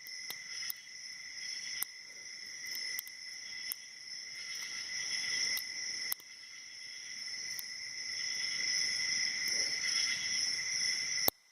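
Irregular sharp metallic clicks of a lock pick and tension wrench working the pin stacks of a six-pin Mako SFIC padlock core, about a dozen of them, over a steady high-pitched insect trill, likely crickets.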